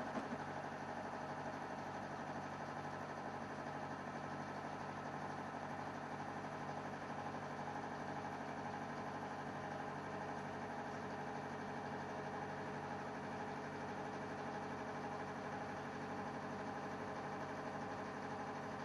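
A motor running steadily with an even, unchanging hum, and a short click right at the start.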